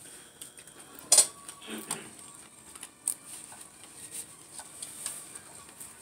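Scattered light clicks and clinks of plates and utensils as food is handled at a dinner table, with one sharper click about a second in.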